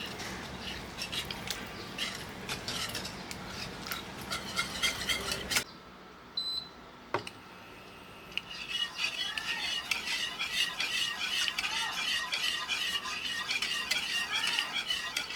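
Kitchen utensils clinking and scraping against cookware in quick, irregular strokes, as in stirring or mixing. About six seconds in it drops to a quieter stretch with a few single clicks, then resumes as a denser run of fast scraping and tapping.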